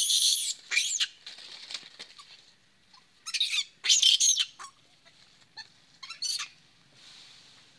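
Young macaque screaming in a series of short, shrill, high-pitched cries with wavering pitch, the loudest about four seconds in and a last short one about six seconds in.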